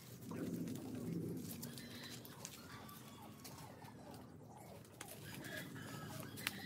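A dove cooing low and soft, loudest in the first two seconds, with scattered light clicks around it.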